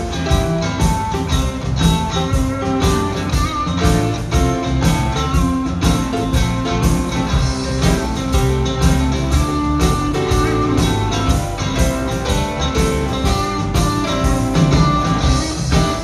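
Live rock band playing: electric guitars, bass, keyboards and drums with a steady beat.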